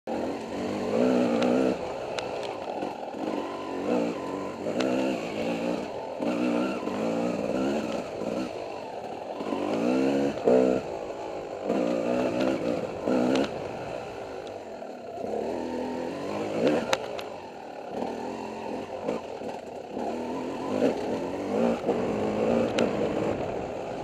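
Dirt bike engine revving up and dropping back again and again as the rider works the throttle, with a few sharp clacks along the way.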